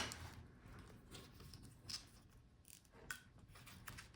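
Faint handling noise of small laptop parts on a bench: a few light clicks and rustles, one around the middle and another about three seconds in.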